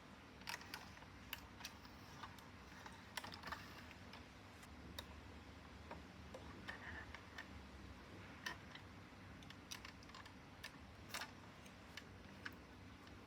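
Faint, irregular light clicks and taps, about a dozen spread unevenly, over a quiet background.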